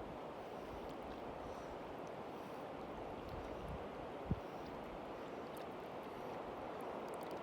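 Mountain river water rushing steadily, with one brief low thump a little past the middle.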